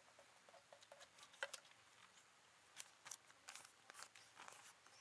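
Faint, irregular rustles and small clicks of A4 paper sheets being handled while a paper disc is made.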